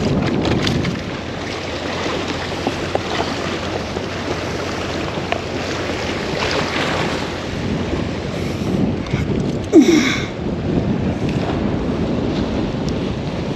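Steady wind buffeting the microphone over the wash of surf, with a few faint clicks. About ten seconds in comes one brief, loud, high-pitched sound with several tones.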